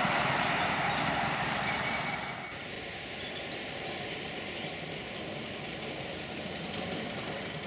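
Ride-on miniature railway train running along a raised track, its wheels rumbling on the rails as it moves away and fades. About two and a half seconds in the sound drops to a quieter outdoor background with a few faint high chirps.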